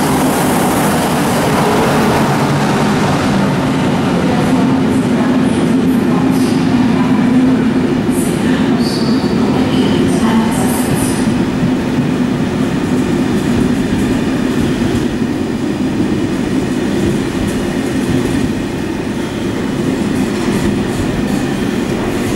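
Locomotive-hauled passenger train rolling past in an underground station: a steady rumble of wheels on rail with a low hum, brief high wheel squeals around 8 and 10 seconds in. The rumble eases a little near the end as the last coaches go by.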